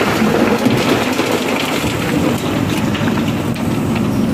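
A JCB 3DX backhoe loader's diesel engine runs steadily while its backhoe bucket tips river stones into a steel trailer. The stones make a dense, rattling clatter that is heaviest in the first couple of seconds and then thins to scattered knocks.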